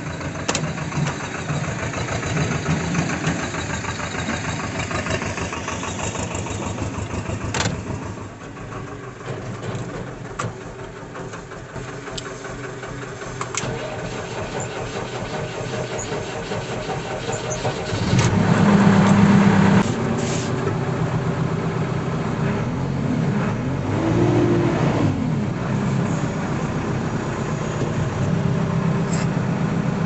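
A JCB 3DX backhoe loader's four-cylinder diesel engine cranks and catches a little past halfway, surges briefly, then settles into a steady run. Before that another engine is heard running, and a knock about a quarter of the way in is followed by a quieter stretch with a few light clicks.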